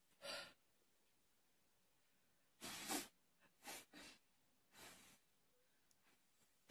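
Faint, short breathy puffs of air: one about a quarter second in, a longer one just before three seconds, and a few smaller ones after, with near silence between.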